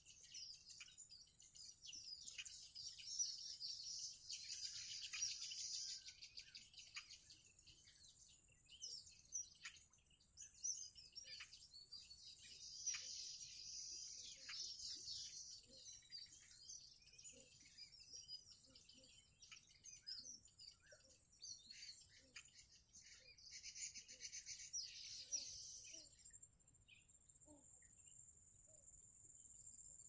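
An insect's steady, high-pitched trill runs almost without a break, dropping out briefly about two-thirds of the way through and again a few seconds later. Scattered small bird chirps come over it in clusters.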